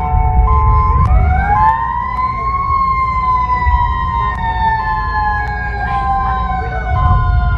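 Emergency alert siren sounds: a stepped, alternating two-tone alarm, joined about a second in by a wailing siren tone that rises and then slowly falls, all over a heavy low rumble.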